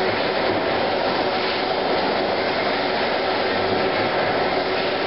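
Steady machine noise: an even rushing sound with a constant hum underneath, unchanging throughout.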